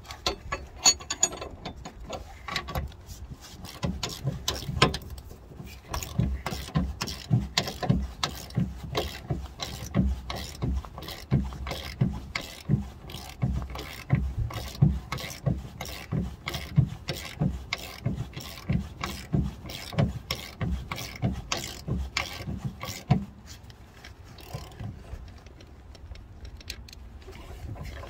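Ratchet wrench clicking in a quick run of strokes as it turns a suspension bolt on a car's rear arm, about two or three clicks a second. The clicking stops near the end.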